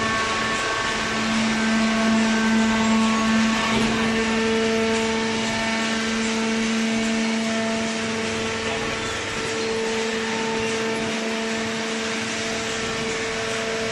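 Hydraulic power unit of a vertical newspaper baler running: a steady motor-and-pump hum with a few held tones, a little louder for a few seconds about a second in.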